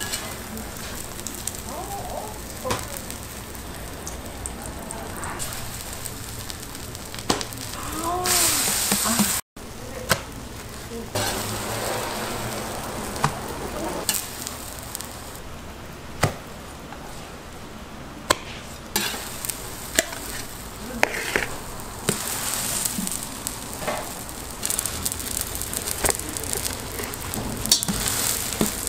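Korean chive pancakes (buchimgae) frying and sizzling in oil on a large round griddle, with scattered clicks and scrapes of a metal spatula against the pan.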